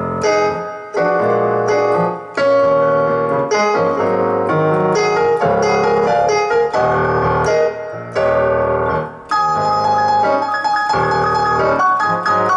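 Kurzweil PC88 digital stage piano played with a piano sound in A-flat minor: both hands strike full chords and hold them, with bass notes underneath and a new chord every second or so.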